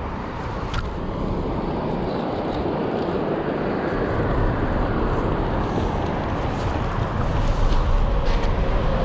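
Steady rush of a freestone river's flowing water, with low wind rumble on the microphone.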